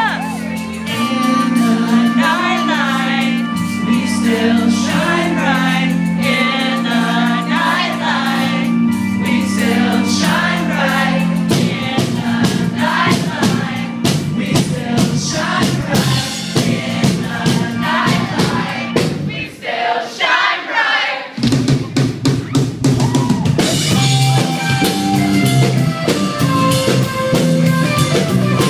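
Live band playing a funky arrangement: singing over bass and drum kit. The drumming gets busier about twelve seconds in, the band thins out briefly around twenty seconds, and then the full band comes back in.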